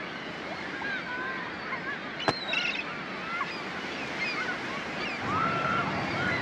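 Beach ambience: a steady wash of surf with many short gull-like cries rising and falling over it, and one sharp click a little over two seconds in.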